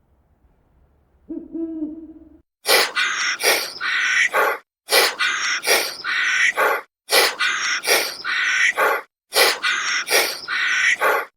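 A single low hoot, then a loud, harsh animal call repeated in four near-identical groups about every two seconds.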